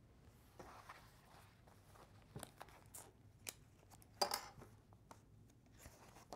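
Faint rustling and crinkling of paper as a folded sheet is picked up and opened on a desk, with scattered light clicks and a louder rustle about four seconds in.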